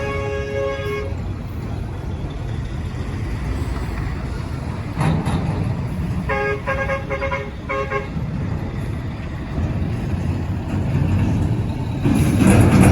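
Road traffic with a vehicle horn honking: one honk about a second long at the start, then a quick string of short honks a little past the middle. A vehicle passes louder near the end.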